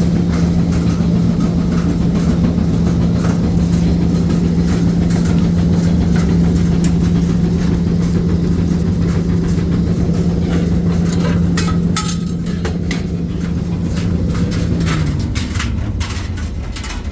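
Commercial laundry machine's motor running with a loud, steady hum, with scattered clicks and knocks, more of them in the second half. About fifteen seconds in, the hum drops in pitch and fades as the motor winds down.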